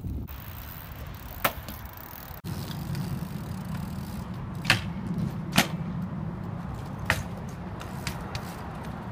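BMX bike ridden on concrete: a steady rumble of tyres rolling, with several sharp clacks as the bike knocks against the ground and a concrete ledge.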